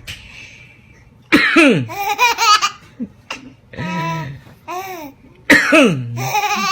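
A baby laughing in bursts mixed with coughing: two loud bouts about four seconds apart, each opening with a sharp falling cry and breaking into quick laugh pulses, with softer calls between them.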